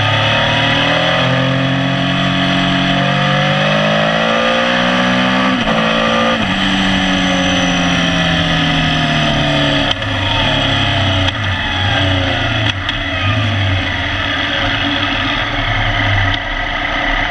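Motorcycle engine under way, the pitch climbing, breaking twice at quick gear changes about a third of the way in, then falling steadily as it slows, ending in an uneven low throb at low revs. Wind and road noise over the microphone throughout.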